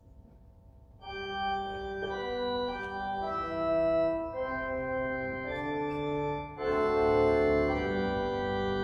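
Organ music starts about a second in: slow, sustained chords, each held for a second or so before moving to the next.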